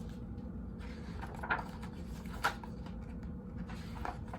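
Quiet room tone with three faint, brief taps spread through it.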